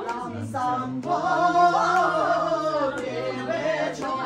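Unaccompanied singing: a voice holding long, wavering notes, loudest about midway through.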